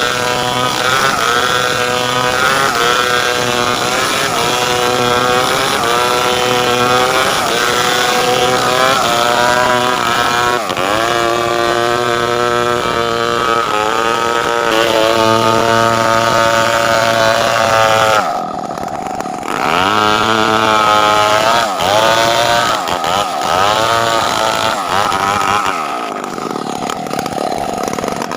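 Two-stroke chainsaw running at high revs under cutting load, its pitch sagging and recovering as it rips through timber for boards. About eighteen seconds in the throttle drops for a moment, then it revs up and cuts again.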